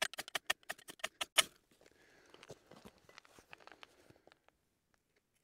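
A ferrocerium fire-starter rod is scraped hard and fast with a knife to throw sparks onto tinder: about a dozen sharp rasping strikes in the first second and a half. Fainter scratching and rustling follow for a few seconds, then it goes quiet.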